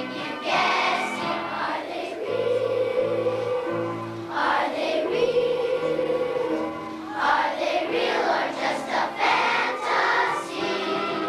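Children's choir singing a song together, in phrases of held notes.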